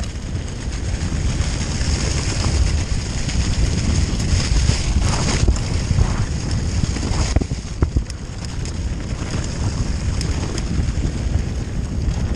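Wind buffeting the microphone over the rumble of a mountain bike rolling along a trail, with a few sharp rattles about halfway through.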